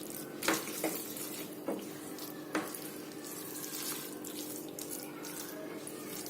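Metal spatula knocking and scraping against a cooking pan while Maggi noodles are stirred in a little added water, with several sharp clicks in the first three seconds over a steady low hum.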